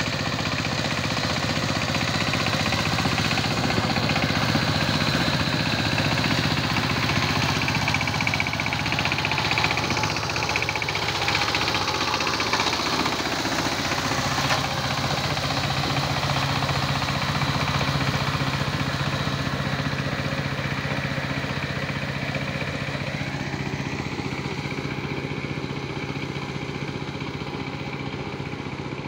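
Two-wheel power tiller's single-cylinder diesel engine running steadily under load as it churns through paddy-field mud, getting quieter over the last several seconds as the tiller moves away.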